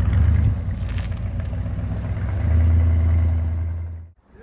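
A car engine idling steadily. It grows louder about two and a half seconds in, then cuts off abruptly near the end.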